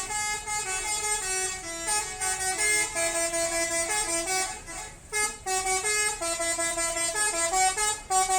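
Bus 'telolet' musical horn playing a quick tune of short stepped notes, with a brief break about five seconds in.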